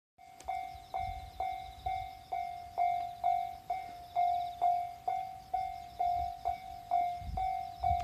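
Japanese level-crossing warning bell ringing, an electronic "kan-kan" tone struck about twice a second, warning that a train is approaching while the barrier is down.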